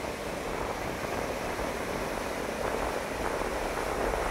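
Sea surf breaking and washing on the shore, a steady rushing that grows a little louder toward the end, with wind rumbling on the microphone.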